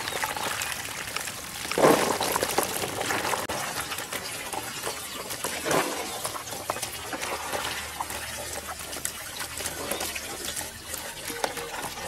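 Muddy water and small fish being scooped with a plastic colander-basket and poured into a woven bamboo basket: running, trickling and splashing water, with a loud splash about two seconds in and another near six seconds.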